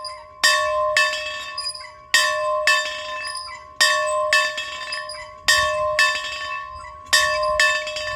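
A bell being rung by swinging, so its clapper strikes twice per swing: about five pairs of strokes, a pair roughly every second and a half to two seconds. Each stroke rings on at the same steady pitch until the next.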